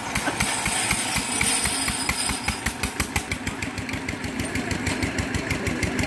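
An engine idling with a rapid, even thudding beat that stays steady throughout.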